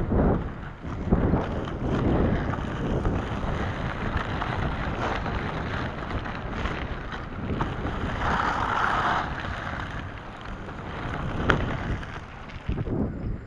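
Wind buffeting the microphone in gusts over the steady rolling of large 125 mm, 83A inline-skate wheels on a dirt road, with a sharp tick near the end.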